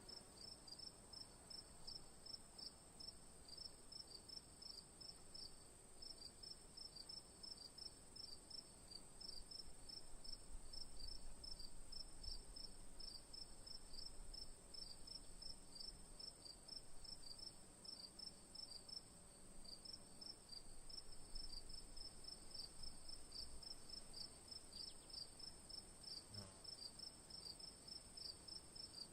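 Crickets chirping: faint, evenly repeated high chirps over a steady, higher continuous trill.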